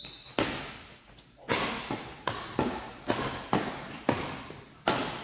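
Badminton rally: a quick, uneven series of about nine sharp smacks from rackets striking the shuttlecock and players' footwork on the court, each one echoing in a large hall.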